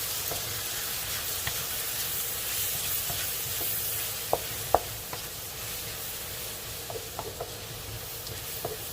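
Onions and tomatoes sautéing in oil, sizzling steadily in the pan as they are stirred. The utensil clicks against the pan now and then, with two louder knocks about four and a half seconds in and a few lighter ones near the end.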